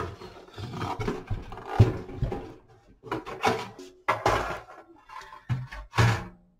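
Sheet-metal cover of a power inverter being lifted off and handled, giving a run of irregular clunks and scrapes of metal.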